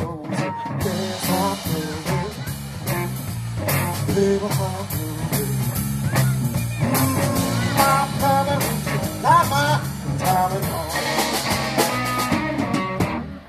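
A live blues-rock band playing: an electric guitar through an amplifier and a drum kit, with a male voice singing.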